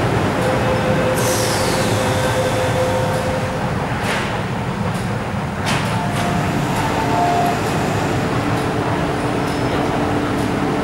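MTR Tsuen Wan Line electric train in the underground station, giving a steady low rumble. A high whine falls in pitch about a second in, and two sharp clacks come near the middle.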